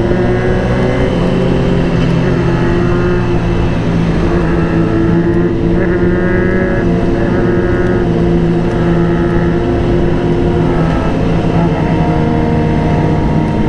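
Honda CBR1000RR-R's inline-four engine running at steady revs while riding, its note holding nearly constant and then shifting to a different pitch about eleven seconds in.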